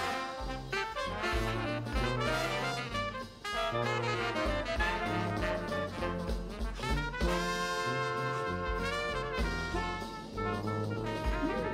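Background music: upbeat jazz with brass instruments over a steady, regular bass line.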